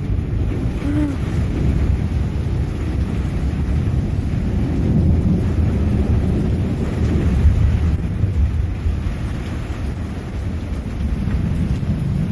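Strong thunderstorm wind and rain: a continuous, loud low rumble that swells and eases without a break.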